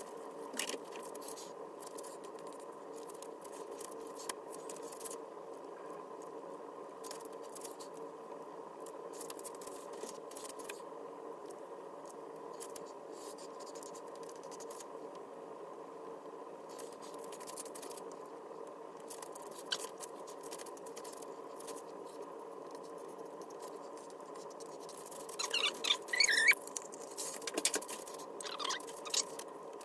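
Paint squeezed from plastic squeeze bottles onto a canvas, with faint clicks, scrapes and rustles of the plastic drop sheet over a steady room hum. Near the end comes a louder cluster of short, wavering squeaks and squelches.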